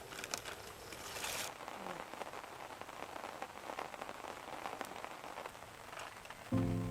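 Steady faint pattering and crackling made of many small ticks, with background music coming in near the end.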